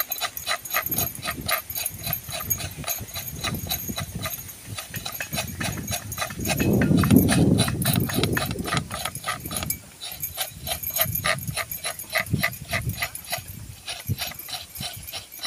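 Wind buffeting the microphone, swelling loudest around the middle, over a steady, fast clicking chorus of about four clicks a second.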